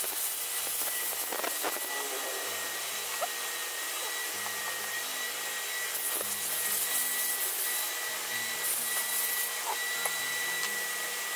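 A steady hiss with a thin, constant high whine, under faint background music. A few light clicks come from small metal bolts being handled and set into an aluminium oil pump cover.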